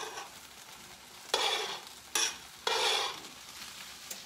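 Sliced mushrooms and onions sizzling in a hot skillet as they are scraped in from a cutting board with a spatula, in three short bursts between about one and three seconds in, each starting suddenly and fading.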